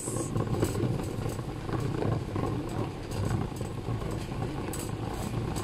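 Shopping cart rolling over a smooth concrete store floor: a steady low rumble from the wheels with scattered light rattling ticks, over the hum of a large store.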